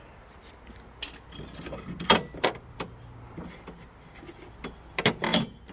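Metal clinks and knocks as a handmade welded aluminum bracket is set in place: a couple of sharp knocks about two seconds in and a quick cluster near the end.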